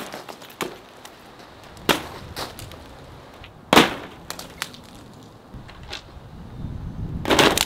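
Hard 2-inch ice balls thrown down onto a fabric car tent, a series of sharp impacts one to two seconds apart, the loudest a little before the middle and a quick cluster of hits near the end.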